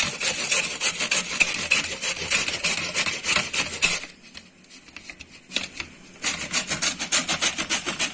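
Raw cassava root being grated on a hand-held carrot grater: quick rhythmic rasping strokes, about five a second, stopping for about two seconds midway and then starting again.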